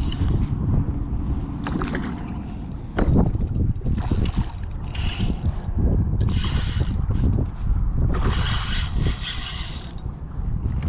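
Spinning fishing reel being worked: a mechanical whirring and clicking that comes and goes in several stretches over a low rumble.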